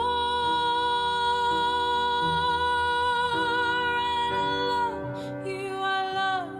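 Slow, soft song with a singer holding one long high note for about four seconds, then moving into a shorter phrase, over gentle accompaniment.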